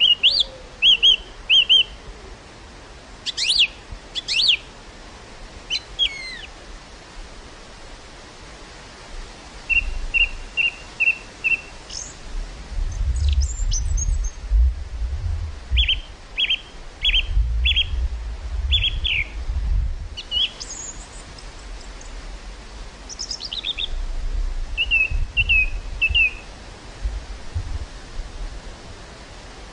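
Small birds chirping and calling in short repeated notes and quick descending whistles, over a steady outdoor hiss. Gusts of wind buffet the microphone with a low rumble a few times, around the middle and near the end.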